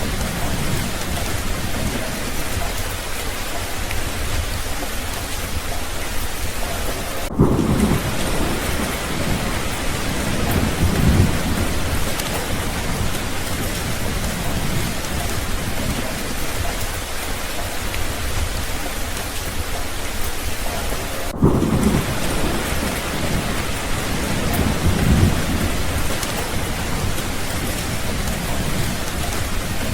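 Steady heavy rain, with low rolling thunder swelling twice: about seven seconds in and again about twenty-one seconds in, each rumble lasting a few seconds.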